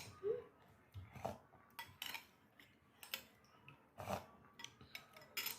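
Spoon and fork clinking and tapping against a bowl while eating noodle soup: an irregular scatter of light, sharp clicks.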